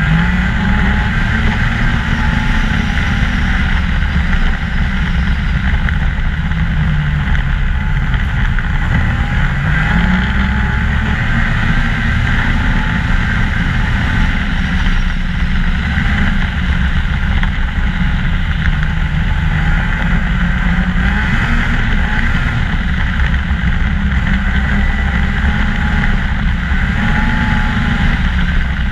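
2014 Ski-Doo MXZ 600 snowmobile engine running steadily at trail speed, its pitch rising and falling every few seconds as the throttle is eased and opened again.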